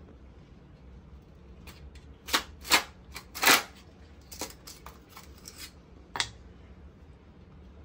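Ice cubes cracking out of a plastic ice-cube tray and clattering into a steel mixer jar: a handful of sharp cracks and clicks, the loudest bunched together a couple of seconds in, and one more near the end.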